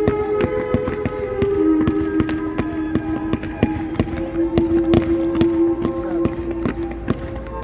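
Fireworks popping and crackling in quick, irregular succession, over show music playing long held notes.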